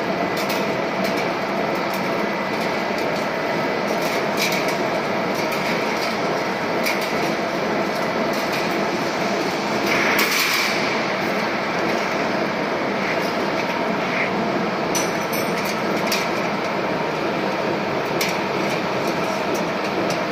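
Machinery running steadily, with scattered sharp metallic clicks and knocks and one louder burst about ten seconds in.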